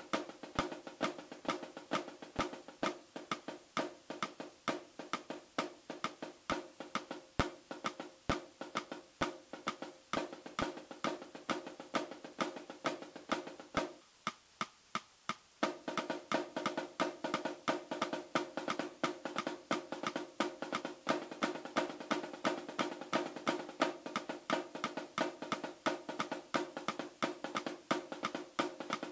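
Flam rudiments played with wooden drumsticks on a snare drum: a steady run of quick strokes with the drum head ringing. About halfway through the playing stops briefly, then resumes with denser, fuller strokes.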